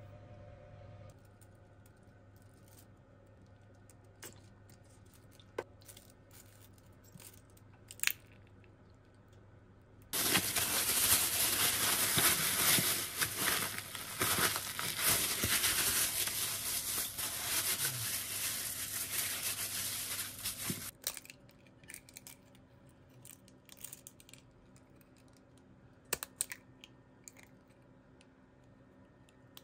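Thin plastic bag crinkling loudly for about eleven seconds as hands squeeze and work a frozen food pack inside it. It comes between quieter stretches with a low hum and a few small clicks and taps.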